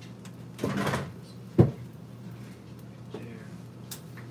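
A short rustle, then a kitchen cupboard door knocking shut once, sharply, about a second and a half in.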